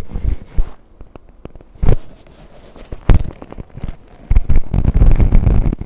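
Joints popping during a chiropractic adjustment: a couple of single sharp cracks, then a dense run of rapid crackling pops and knocks from about four seconds in.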